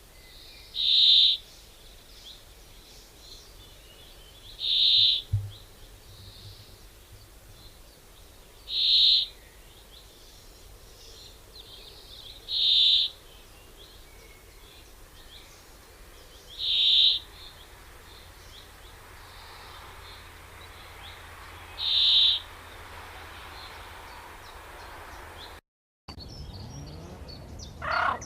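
A bird's short high call, repeated six times at even spacing about four seconds apart, over a faint steady background. Near the end the sound breaks off briefly and gives way to quicker chirping.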